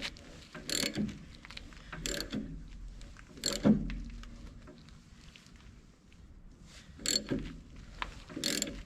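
Hand ratchet wrench clicking in short, irregular strokes as it turns a lug nut on a wheel stud installer tool, with a few sharper metal clicks between quieter spells.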